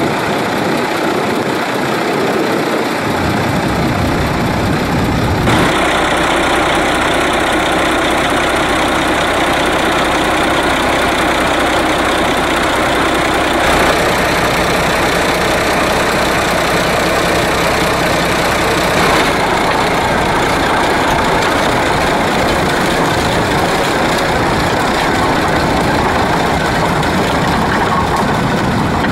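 Diesel engine of a tracked rice-field tractor idling steadily, a loud continuous rumble and clatter.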